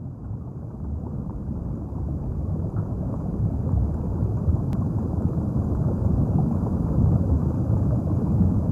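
Underwater ambience: a low, muffled rushing rumble with no distinct tones, swelling steadily louder.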